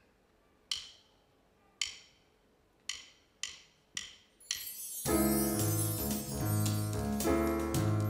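A live band's instrumental song intro: six single high struck notes that ring out, coming closer together, then the full band with bass, keyboards and drums comes in about five seconds in.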